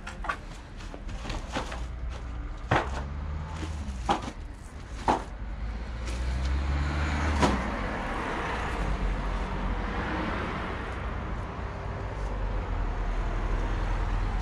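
Several sharp knocks, then a motor vehicle's engine and tyre noise building from about halfway through and running on steadily.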